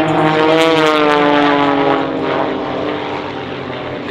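A formation of aerobatic biplanes flying past, their piston engines and propellers droning. The pitch drops as they go by, and the sound fades after about two seconds.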